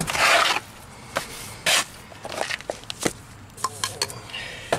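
A steel mason's trowel scraping cement against brick. There is a loud scrape at the start and another short one just under two seconds in, with light clicks and knocks of metal and brick in between.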